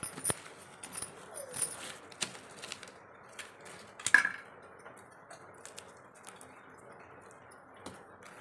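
Scattered light clicks and clinks as roasting potatoes are checked in the embers of a clay chulha, with one louder clink about four seconds in, then only a faint steady hiss.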